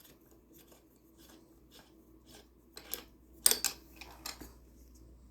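Metal tool clicking and clinking on a bicycle crank arm bolt as it is undone and taken out. Short, scattered clicks, with the loudest handful about three to three and a half seconds in.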